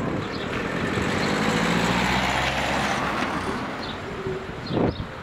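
A motor vehicle drives past on the street, its engine and tyre noise swelling to a peak about two seconds in and fading away. A brief thump comes near the end.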